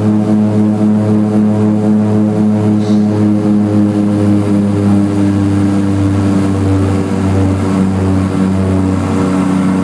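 Seaplane's propeller engine droning steadily in flight, heard from inside the cabin.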